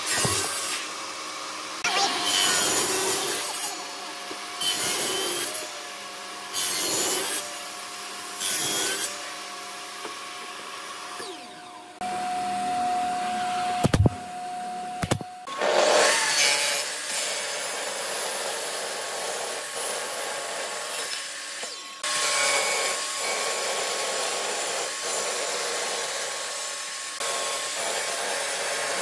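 Table saw blade cutting a row of notches into old railway sleeper timber, about five short cuts two seconds apart. Two sharp shots from a pneumatic nail gun about a second apart follow, then the saw making a long continuous rip cut through the wood.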